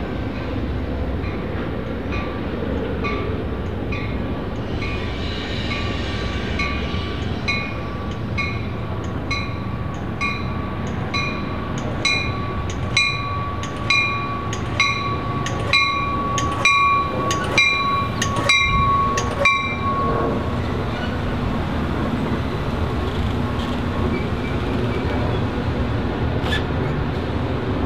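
A train rolling past on the rails with a steady low rumble. Over it, a crossing warning bell rings about twice a second, grows louder, and stops about 20 seconds in.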